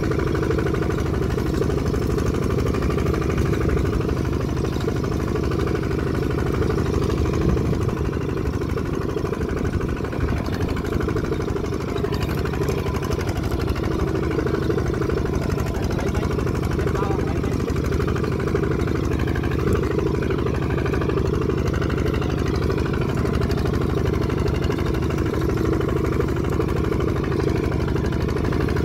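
Kubota walking tractor's single-cylinder diesel engine running steadily, with no change in speed.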